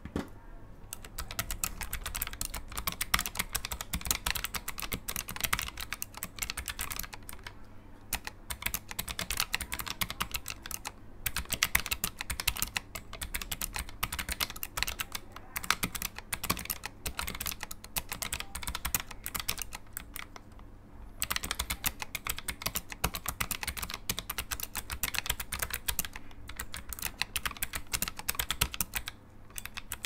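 Typing on a Meetion MK80 low-profile mechanical keyboard with clicky blue switches: a fast, dense run of sharp key clicks. It breaks off briefly a few times, longest a little over two-thirds of the way through.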